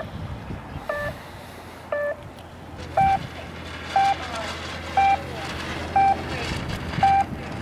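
Electronic race-timer beeps for radio-controlled yacht racing, one short beep each second; about three seconds in, the beeps step up to a higher, louder tone.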